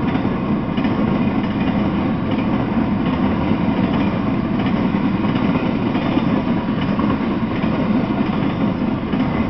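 Freight train of empty flatcars rolling past: a steady rumble of steel wheels on rail.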